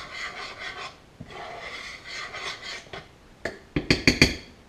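A spoon scraping around a skillet of crawfish étouffée in two stretches, then several sharp taps of the spoon against the pan near the end.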